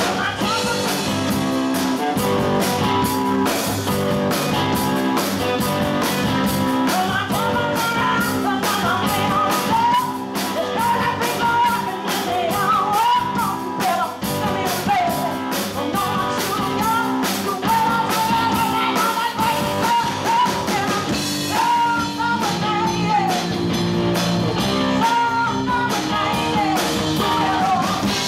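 Live rock band playing: a woman sings a bending melody over electric guitar, electric bass and a drum kit keeping a steady beat.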